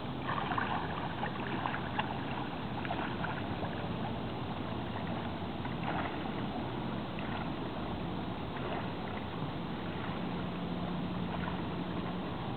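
Swimming-pool water sloshing and splashing as a person swims through it. A steady wash of water noise, with a few faint splashes in the first few seconds and again about six seconds in.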